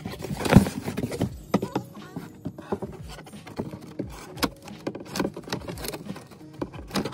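Cardboard box and tissue-paper packaging being handled: rustling and crinkling, with many scattered sharp taps and knocks and a louder burst of rustling about half a second in.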